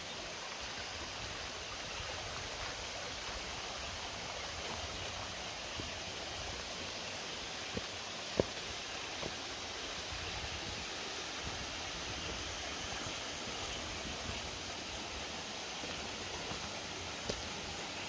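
Small rocky forest stream running steadily over stones, an even rush of water. A few faint short ticks sound over it, the sharpest about eight seconds in.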